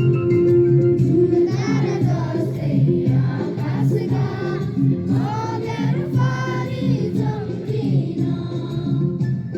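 A group of voices singing a school song in unison over instrumental accompaniment.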